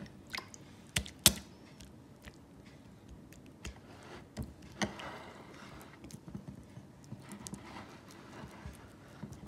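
Wet fingers pressing and patting soft ragi kali (finger-millet dough) in a ceramic bowl: soft squishes with scattered sharp clicks against the bowl, the loudest about a second in.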